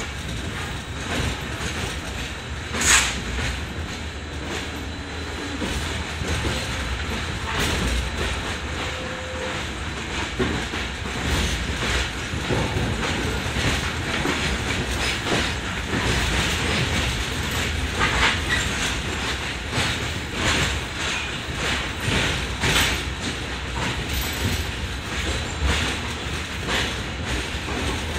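Train running along the track, its wheels clattering and knocking irregularly over the rails under a steady rumble, with one sharp clank about three seconds in.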